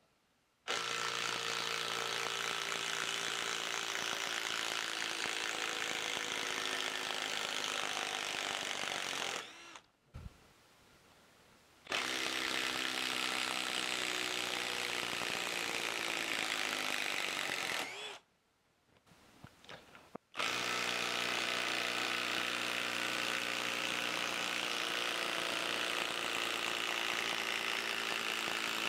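Three runs of cordless 12-volt impact drivers (a DeWalt 12V brushless, a Milwaukee M12 and a Skil PWRCore 12) hammering a long screw into end-grain wood. Each gives a steady impacting rattle under load. The first run lasts about nine seconds and the second about six, with short pauses between them, and the third starts about two-thirds of the way in.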